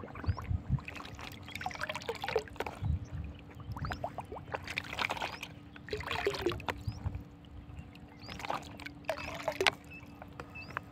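Water in a plastic drum being stirred, sloshing and splashing in uneven strokes about once a second as a powdered potash fertiliser is mixed in.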